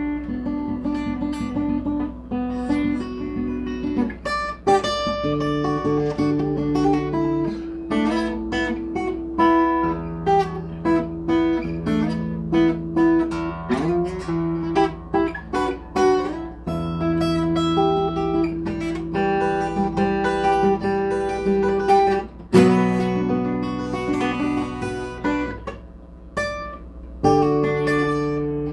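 Guitar being played: chords and picked notes ringing one into the next, with a steady low hum underneath.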